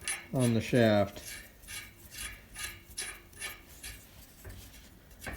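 Short, rhythmic metal-on-metal scraping strokes at the threads of a combine's steel shaft, about three a second, fading out over the last second or two.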